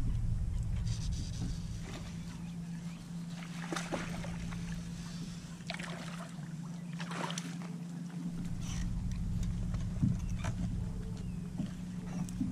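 Steady low hum of a bass boat's bow-mounted trolling motor with wind rumble on the microphone, broken by scattered short splashes and clicks as a hooked bass is fought and brought to the boat. The rumble drops away for several seconds in the middle.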